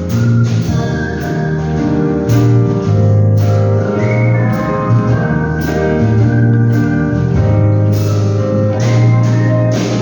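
Artistic whistling: a whistled melody over an instrumental backing with bass and a steady beat.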